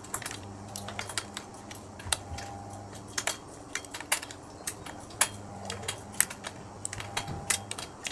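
Light, irregular metallic clicks and ticks of a hex key turning in screw heads and of small screws and spring washers being handled while fastening an electric unicycle's pedal bracket.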